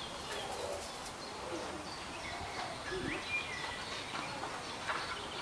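Quiet outdoor ambience with a few faint, scattered bird chirps.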